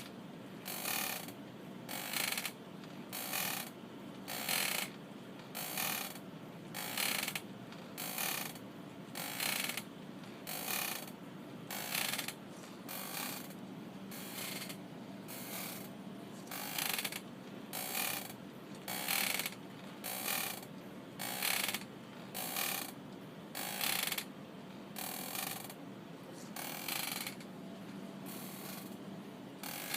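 Rocking chair creaking as it rocks, a short creak about once a second in a steady rhythm, over a faint low hum.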